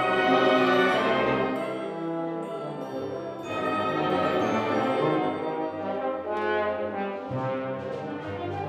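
Bass trombone soloist playing with a symphonic wind band in a continuous passage of full, sustained brass and wind chords. The music swells near the start and again about three and a half seconds in.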